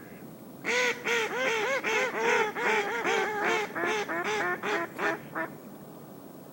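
Mallard-hen quacking: a run of about a dozen loud quacks over some five seconds, the later ones shorter and quicker, stopping well before the end.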